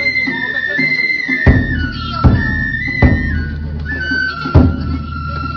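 Japanese festival music: a high bamboo flute playing a melody of held notes over four heavy drum strikes. This fits the shagiri ensemble of flute and drums that plays for the Nagasaki Kunchi floats.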